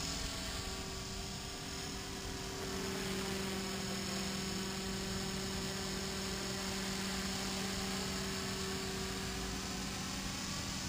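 Blade 300X electric RC helicopter in flight, its brushless motor and spinning rotor blades giving a steady hum, with the pitch bending slightly in the first couple of seconds as it passes.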